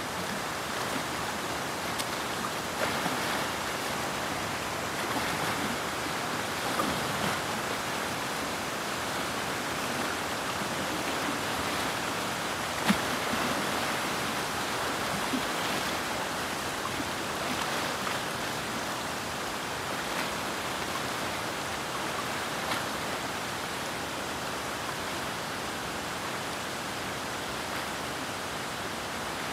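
Steady rush of a flowing river, with a few faint ticks and one sharp click about halfway through.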